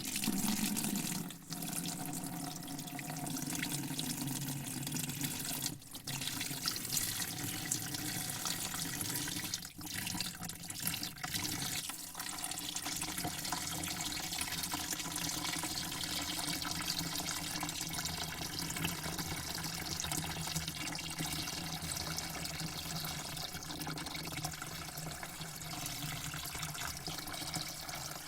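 Water spraying into a bucket: a steady, continuous hiss and splash, with a few brief breaks in the spray during the first twelve seconds.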